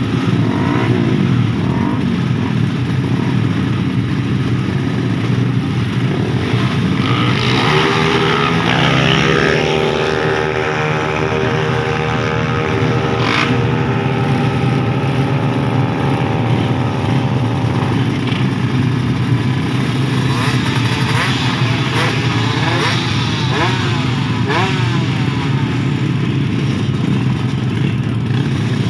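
Racing motorcycles running at the drag-strip start line and being revved: the engine pitch climbs about seven seconds in and is held high for several seconds, then several quick throttle blips rise and fall near the end.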